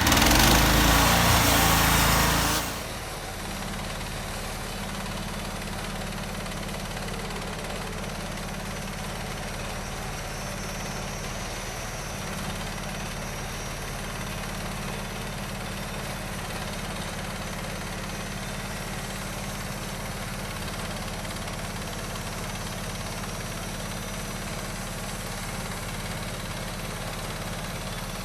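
Bandsaw mill's engine running. It is much louder for the first couple of seconds, then drops to a steady, even run.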